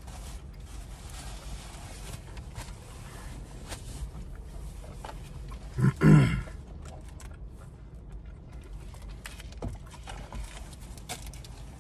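Low steady hum with small clicks and rustles from people eating. About six seconds in there is one short, loud, guttural grunt.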